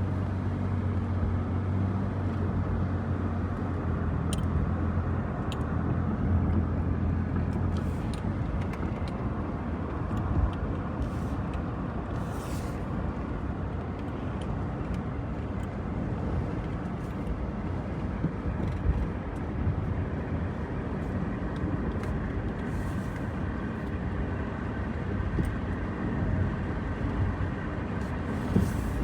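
A car on the move: steady engine hum and road noise, with a few faint clicks.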